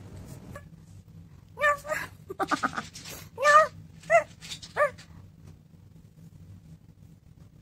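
Young tabby kitten meowing: about six short, high mews with a quick run of rapid calls in the middle, all between about one and a half and five seconds in.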